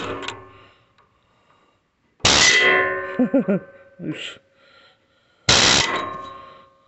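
Hand-held pneumatic air chisel hammering a rusted, seized bolt out of a steel trailer frame in three short bursts, at the start, about two seconds in and about five and a half seconds in. After each burst the steel rings on and dies away over about a second.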